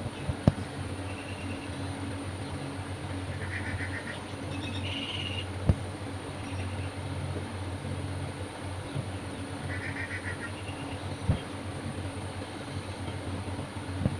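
Steady low background hum, with a few sharp clicks and some brief, faint high chirps.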